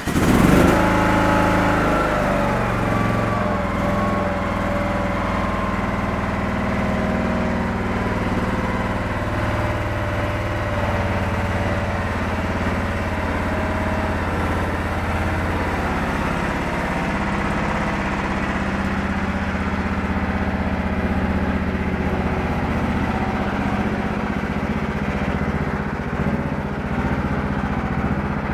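John Deere 180 lawn tractor engine catching and then running steadily, its pitch easing down a little over the first few seconds as it settles: a cold start after sitting for over three months.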